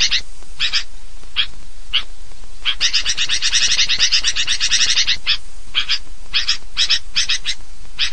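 Sooty-headed bulbul (kutilang) giving rowdy calls. There are single sharp notes about every half second, then a fast chattering run from about three to five seconds in, then a few more single notes and a shorter run of chatter near the end.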